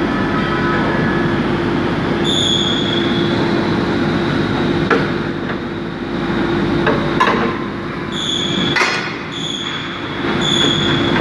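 Metal being worked on steel bulldozer-blade parts: a steady machine hum, with several sharp metal knocks and four short high-pitched squeals, the squeals about two seconds in and three times near the end.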